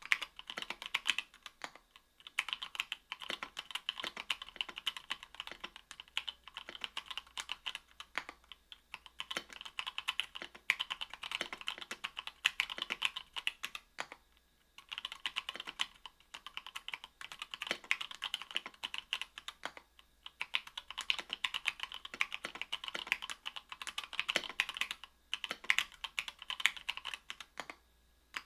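Typing on an Octagon V3 mechanical keyboard with stock, unlubed Gateron Milky Yellow 50g linear switches in an aluminum plate. The keystrokes come in rapid, steady runs with short pauses, the longest about fourteen seconds in.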